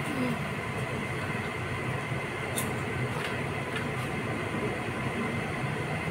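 A steady low rumbling background noise, like distant machinery, runs throughout, with a few faint crisp clicks from crunching puffed snack sticks.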